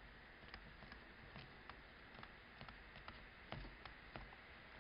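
Near silence with faint, scattered ticks and taps of a stylus writing on a tablet screen.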